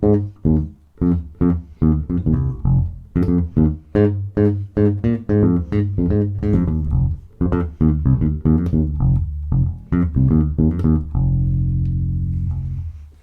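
Dingwall ABZ 4 passive four-string bass played direct, pickups in parallel for a mid-scooped, bright tone with the tone control fully up, in a quick slap-style funk line of sharply attacked notes. It ends on one held note that rings and fades near the end.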